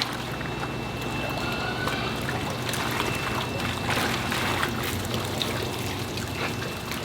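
Water trickling and sloshing as live shiners are scooped out of their water, over a steady low hum.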